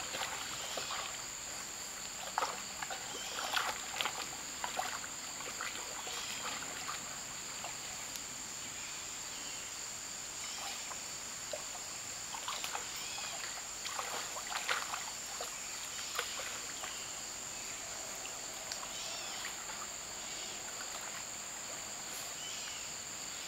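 A dog splashing in shallow creek water as it digs at the bottom with its paws and nose, in irregular short splashes that come in clusters. Behind it runs a steady high-pitched drone of insects.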